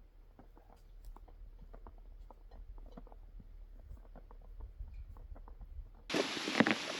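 Faint scattered small clicks and crackles. About six seconds in, the loud, steady rush of a waterfall starts suddenly.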